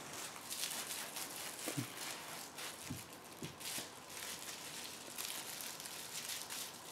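Soft, irregular rustling and scuffling of a small kitten playing on carpet, pouncing and batting at a hand and a toy, with a few faint low knocks.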